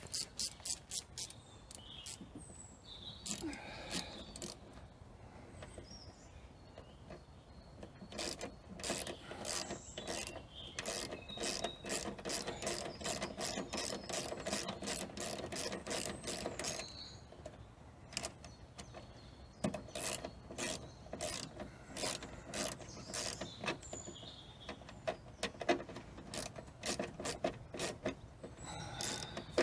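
Hand ratchet clicking in repeated back-and-forth strokes, tightening the bolts that hold a rubber tool clamp in place. There are two long runs of quick clicks, one starting about eight seconds in and the other about twenty seconds in.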